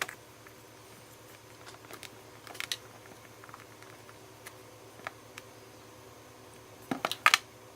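Light plastic clicks and taps of Play-Doh tubs and modelling pieces being handled on a table. The taps are scattered, with a louder cluster of several clicks near the end.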